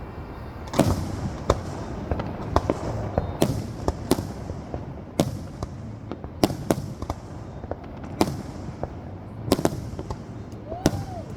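Fireworks going off: about a dozen sharp, irregularly spaced bangs over a steady background rumble.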